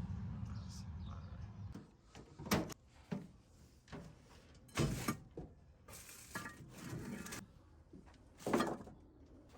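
A low vehicle rumble fades away over the first two seconds, then a handful of separate knocks and clatters follow, the loudest about two and a half, five and eight and a half seconds in.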